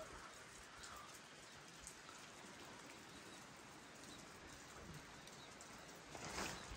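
Near silence: faint outdoor background hiss with a few scattered faint ticks, and a louder rustling noise near the end.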